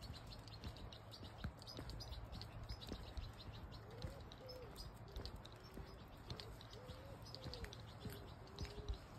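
Footsteps on a tarmac path, with small birds chirping faintly. From about four seconds in, a pigeon coos in a repeated series of low, arching notes.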